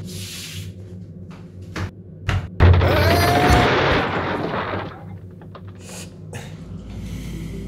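Cartoon sound effects for a door opening onto a portal: a few sharp clicks, then a heavy thud about two and a half seconds in that sets off a loud rushing noise lasting about two seconds. Near the end come two more clicks and a softer rush, all over a low steady hum.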